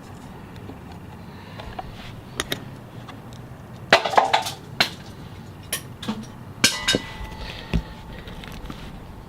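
A series of sharp clicks and knocks from hard parts of a broken RV roof antenna being handled, with the loudest cluster about four seconds in.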